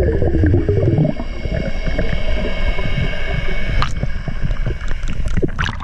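Underwater sound picked up by a camera below the surface: a dense low rush of moving water with a wavering tone in the first second, then a steady high whine, and a couple of sharp clicks near the end.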